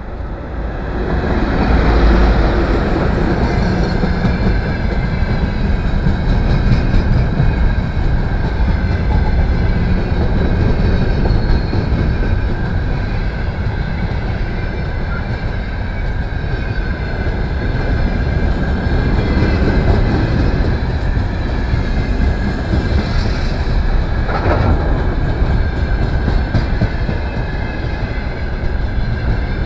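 VL10 electric locomotive passing close by, followed by a long freight train of open gondola wagons rolling past with a steady wheel rumble and clatter on the rails. It swells over the first couple of seconds as the locomotive goes by, then holds loud and even.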